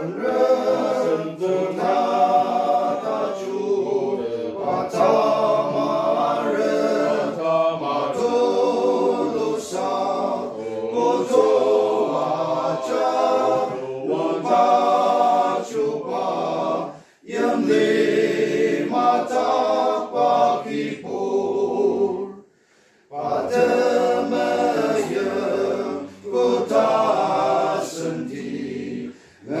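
Small men's group singing a hymn in the Ao Naga language together, unaccompanied, reading from song sheets. The singing pauses briefly twice in the second half.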